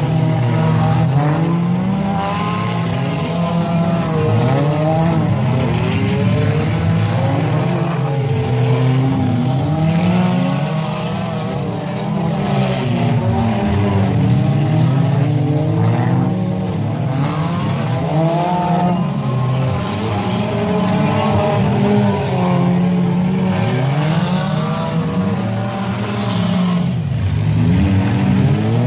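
Engines of several figure-8 race cars (stripped compact cars) running hard at once, their pitches overlapping and constantly rising and falling as the drivers accelerate and back off around the course.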